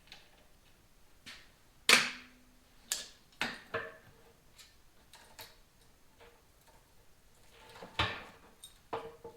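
Scattered clanks and knocks of metal motorcycle parts and tools being handled while the handlebar controls are taken loose. The loudest is a sharp clank about two seconds in that rings briefly; others follow near three and a half seconds and eight seconds.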